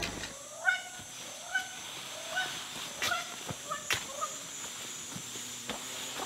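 Rainforest sounds: an animal gives a short, clipped call that bends up in pitch, repeated about seven times in the first four and a half seconds, over a steady high insect hum. A few sharp clicks fall in between.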